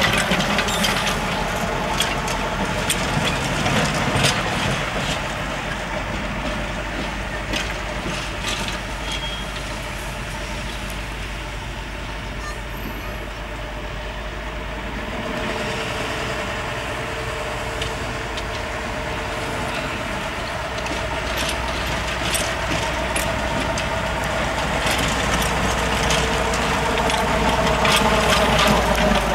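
A Krupp D301-class diesel-hydraulic shunting locomotive's engine running as it moves through the yard, with scattered sharp clicks over the engine sound. It drops a little in level in the middle and grows louder again near the end.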